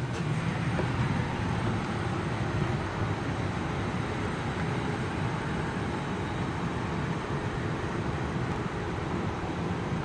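Steady wind blowing across the microphone, a continuous rushing noise with a fluttering low rumble.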